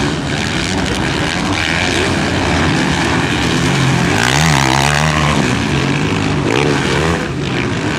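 Several motocross bike engines running and revving on the track, their drone overlapping. About halfway through one bike's engine climbs and drops sharply in pitch as it accelerates and backs off.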